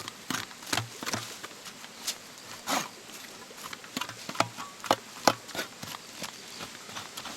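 Fatwood giving irregular sharp snaps and cracks, about a dozen spread unevenly, with one longer rasping crackle a little under halfway through.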